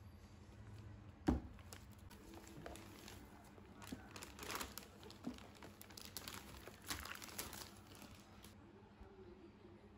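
A knock about a second in as a bag is set down on a table, then plastic and paper takeaway bags crinkling and rustling as they are opened and a boxed snack is pulled out.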